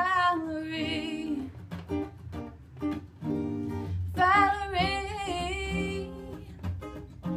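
A woman singing two phrases of long, wavering held notes, the first at the start and the second about four seconds in, over a steadily strummed acoustic guitar.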